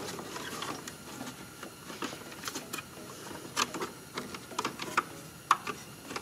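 Scattered light clicks and taps of hands working at the engine computer's housing, connectors and wiring harness, with a few sharper clicks in the second half.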